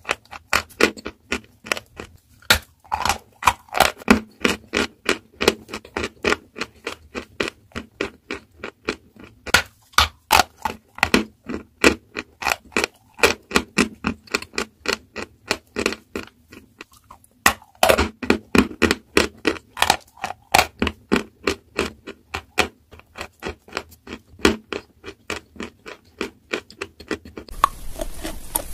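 Close-up chewing of a chunk of dry chalk: rapid, crisp crunches, about three a second, with short pauses between bites. Near the end it changes to a quieter steady hiss.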